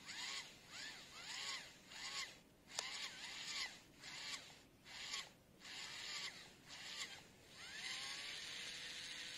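Small yellow plastic DC gear motor turning a spiral auger bit in sand: a rhythmic rasping about twice a second, each stroke carrying a whine that rises and falls in pitch. Near the end it settles into a steady whine and hiss as the bit lifts out of the hole.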